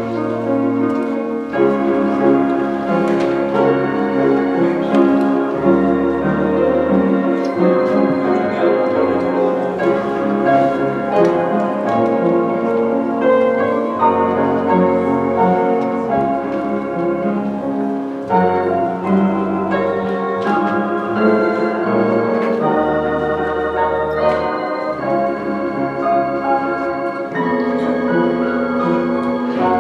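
Organ playing slow, sustained chords over long held bass notes.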